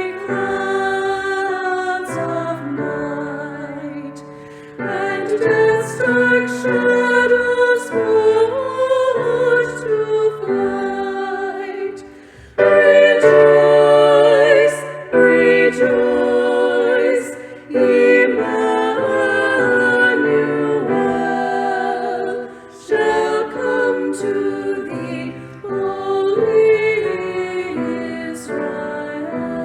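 Three women singing a Christmas song in close harmony, with sustained notes and vibrato, over piano accompaniment.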